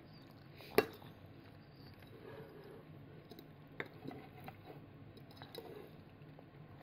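A toddler eating at the table: faint chewing and small clicks of tableware, with one sharp tap about a second in and a softer one near four seconds, as he reaches into the bowl.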